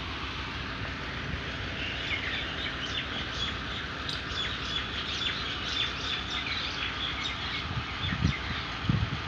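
Small birds chirping in quick, busy runs from about two seconds in, over a steady background noise. There are a few low thuds near the end.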